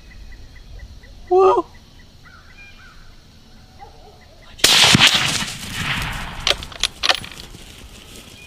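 A single rifle shot about halfway through: a sudden loud crack that rolls away for over a second, followed by a couple of sharper knocks. A brief call is heard about a second in, before the shot.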